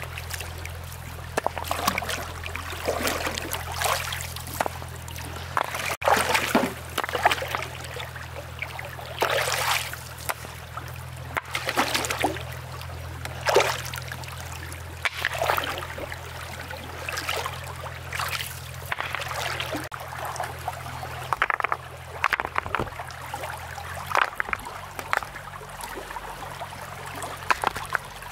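Water splashing and trickling in short, irregular bursts, over a faint steady low hum.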